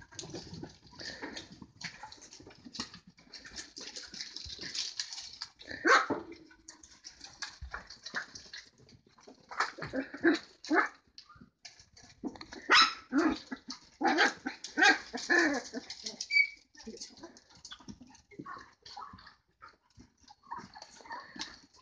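Puppies yipping and barking in play, in short bursts that cluster most thickly in the middle stretch, with quieter spells between.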